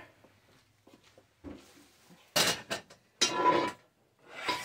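Heavy enameled cast-iron pot being set down and moved about on a stovetop: a few short clanks and scrapes in the second half, one or two with a brief metallic ring.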